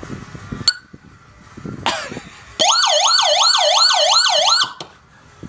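Electronic police siren played through a Rockford Fosgate amplifier and tweeters. A click comes first, then a rising sweep about two seconds in. It then plays a fast, loud yelp, warbling up and down about three times a second for about two seconds, and cuts off suddenly.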